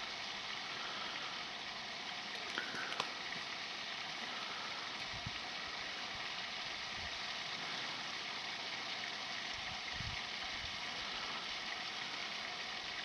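Steady hissing background noise, with two faint clicks about three seconds in.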